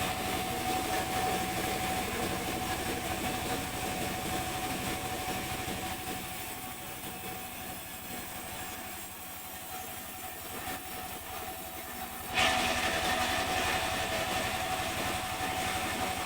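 Sawmill saw running steadily with a held whine, then getting suddenly louder and harsher about twelve seconds in, as it bites into a hard mahogany log.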